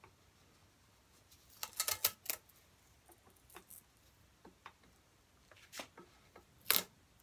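Small scattered clicks and crackles of thin tape being pulled from its roll and pressed around a wooden didgeridoo tube by hand. There is a cluster about two seconds in and a sharper crackle near the end.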